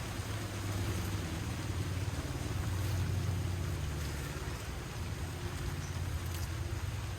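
Steady rain falling, with a low rumble underneath that swells about a second in and eases after the middle.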